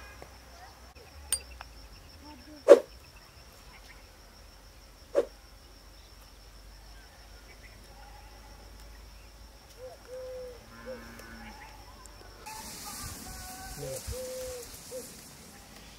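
Outdoor field sound: a steady high-pitched tone with three sharp snaps about one, three and five seconds in, the middle one loudest, and a few faint short calls. A rustling hiss comes in for a couple of seconds near the end.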